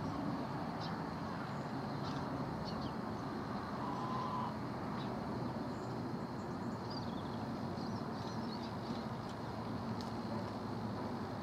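Steady low outdoor rumble with faint, scattered high chirps, and a brief whistle-like tone about four seconds in.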